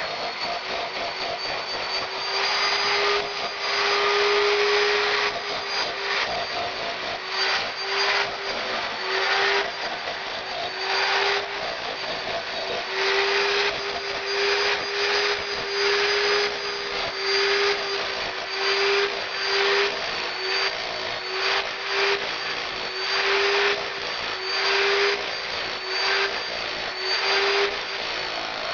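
Electric power tool running steadily while stripping old plaster off a wall, with a constant motor whine and rough, gritty surges about once a second as it bites into the plaster.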